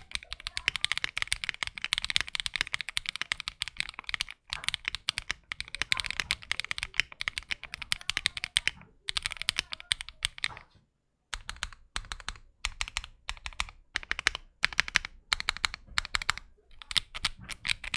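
Typing test on a Finalkey V65 R2 aluminum 65% mechanical keyboard run without its internal foams. It starts with rapid, continuous keystrokes, goes quiet briefly about ten and a half seconds in, then continues with slower, more separate key presses.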